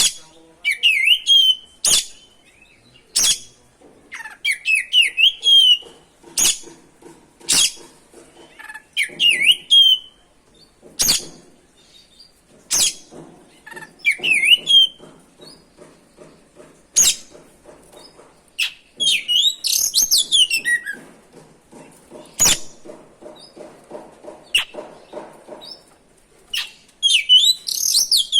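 Oriental magpie-robin (kacer) singing in a continuous rolling run of short whistled phrases with quick up-and-down slides. Loud, sharp clicks cut in at uneven intervals of a second or few and stand out as the loudest sounds.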